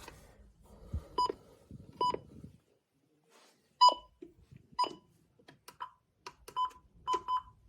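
Short electronic key beeps from weather alert radios: about eight single beeps at uneven spacing, with faint clicks and handling noise between them.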